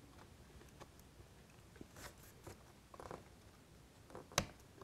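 Faint handling sounds of fingers working a flat flex cable into its connector on an opened iPad's logic board: light rustles and small taps, with one sharper click near the end.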